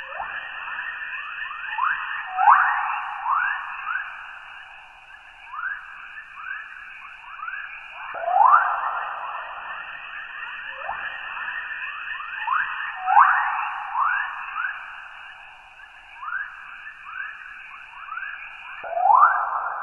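Electromagnetic chorus waves from Earth's magnetosphere, converted to audio: many quick rising chirps, like birdsong, over a steady higher hiss, with a louder sweep every five seconds or so.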